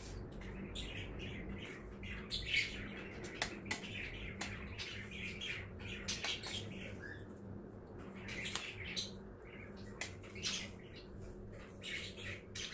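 Steel spoon clinking and scraping on a stainless steel plate as rice gruel is eaten, in short irregular clicks, over a steady low hum.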